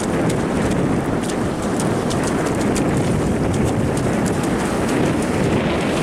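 Strong wind buffeting the microphone over the rush of surf, with footsteps on wet sand coming about twice a second.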